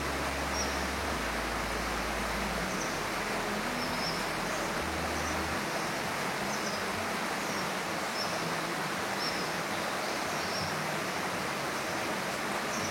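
A steady rushing noise with short, faint, high chirps repeating every second or so.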